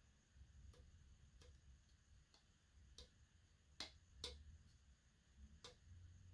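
Faint, irregular clicks and taps from a hard drive and its metal mounting bracket being handled, two sharper clicks close together about four seconds in, over a low room hum.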